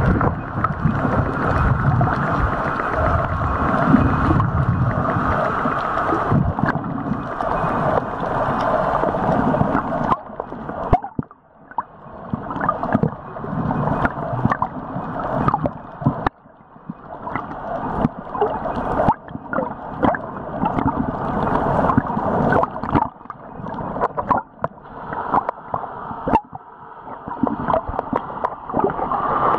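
Underwater noise of water moving around the camera, gurgling, with scattered clicks. Steady at first, then in swells that build over a few seconds and drop off sharply.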